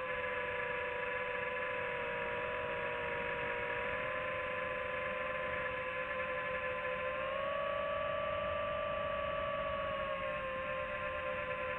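FPV quadcopter's motors and propellers whining steadily in flight; the pitch rises a little about two thirds of the way through as the throttle goes up, then eases back near the end.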